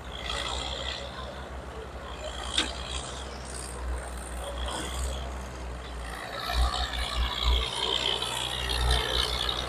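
Large old engine running with a low, uneven rumble, with a sharp click about two and a half seconds in and a hiss in the second half.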